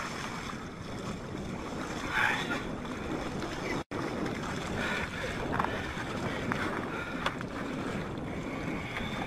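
Steady outdoor noise of wind and water, with faint distant voices now and then; the sound drops out for an instant just before four seconds in.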